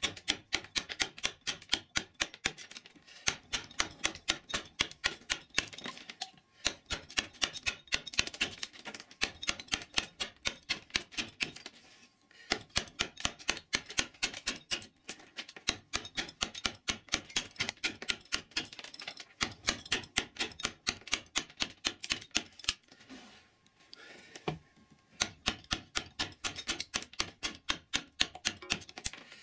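A carving gouge driven into a wooden block by quick mallet taps, about four a second, in runs with short pauses between them, chipping the wood away level by level.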